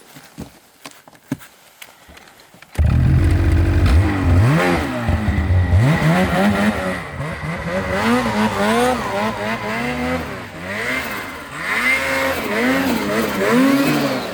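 A snowmobile engine comes in suddenly about three seconds in and is revved up and down over and over, after a few faint knocks.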